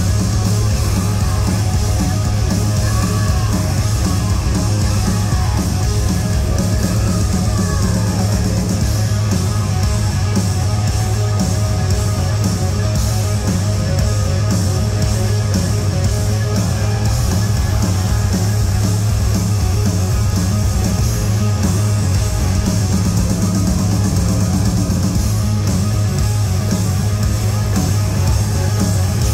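Live rock band playing loud through an arena sound system, distorted guitars over a heavy, booming bass line, with no break in the music.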